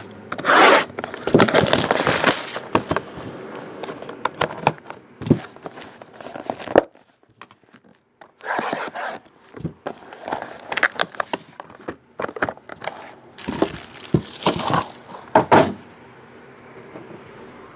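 Hands tearing the plastic wrap off a sealed trading-card hobby box and opening the cardboard box: bursts of ripping, crinkling and scraping, with a short pause about halfway through and quiet near the end.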